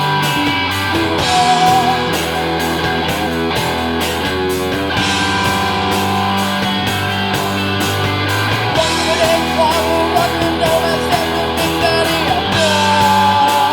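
Rock band playing live with electric guitar, bass and drums: a steady drum beat under a heavy bass and a wavering lead guitar line.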